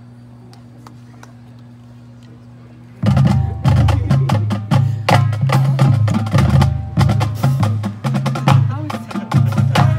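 Marching band: a faint steady low hum, then about three seconds in the band comes in loud, with low brass notes under sharp percussion hits in a punchy rhythm.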